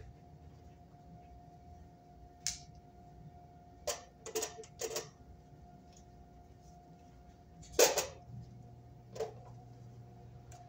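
Scattered sharp metal clicks and clinks of hand tools, pliers and a screwdriver, knocking against each other and the water heater's sheet-metal cover as it is fastened back on. There are about seven of them, the loudest about eight seconds in, over a faint steady hum.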